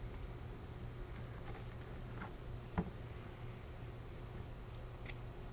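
Faint sounds of a knife cutting a raw pork chop on a plastic cutting board: soft scraping with a few small clicks, one sharper just before the middle. A steady low drone runs underneath, which sounds like a neighbour's string trimmer.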